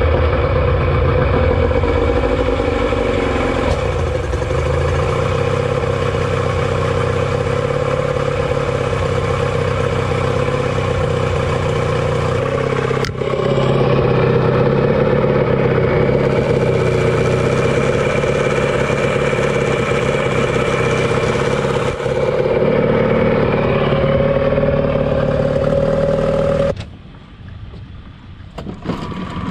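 Yamaha 20 hp two-stroke outboard running steadily on a garden-hose flush attachment, test-run on its freshly rebuilt fuel pump. Near the end the sound drops off sharply to something quieter.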